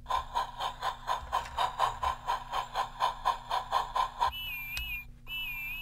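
Battery-powered talking Golden Bear Whiff toy engine playing its sound effect through its small built-in speaker: a rhythmic steam chuffing at about five beats a second, then two short electronic whistle toots near the end.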